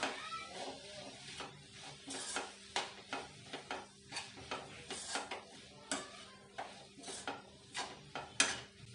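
Metal spoon stirring vegetables in a wok, scraping and clinking against the pan in irregular strokes, about two a second.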